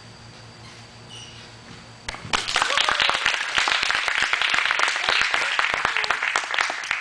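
A small crowd breaks into clapping and cheering about two seconds in, at the end of a gymnast's bar routine, with a shout or two among the claps.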